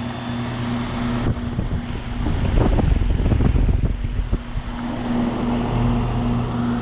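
2008 Goodman 2-ton heat pump's outdoor unit starting up in heat mode, with a steady low hum. A loud rushing, rumbling noise swells up about two seconds in and eases off after about four and a half seconds, leaving the hum stronger.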